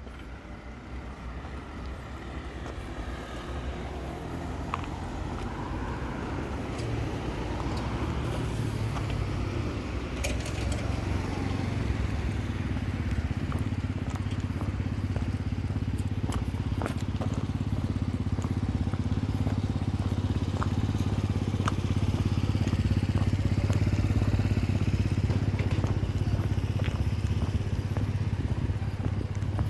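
A heavy engine running at a steady pitch, growing louder over the first half and then staying loud, with scattered light clicks.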